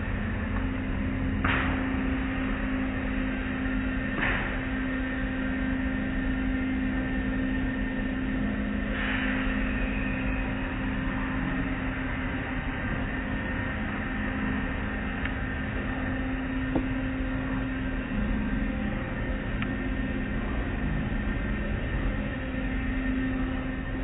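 Automatic car wash heard from inside the car: water spraying and running over the glass, with a steady hum from the wash machinery. A few brief swishes come about 1.5, 4 and 9 seconds in.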